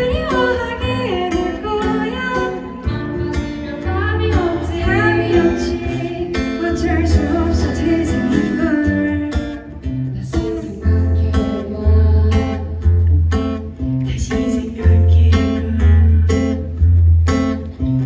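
Live pop ballad performance: female vocals over acoustic guitar and keyboard. The singing drops out about halfway, leaving strummed guitar chords and repeated low keyboard notes.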